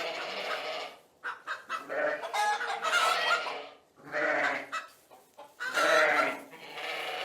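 An animal calling in a run of pitched calls with short breaks between them, the last about six seconds in.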